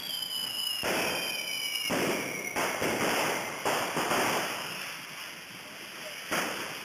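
Hissing street rockets (coets) spraying sparks, with a falling whistle over the first two seconds and several sharp cracks scattered through.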